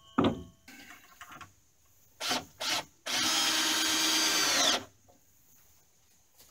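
Cordless drill driving a screw into a wooden roof support: two short trigger blips, then a steady run of a little under two seconds that drops in pitch as it stops. A brief falling whine comes right at the start.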